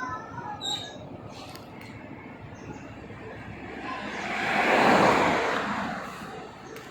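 A vehicle passing by: a noisy swell that builds, peaks about five seconds in, and fades away.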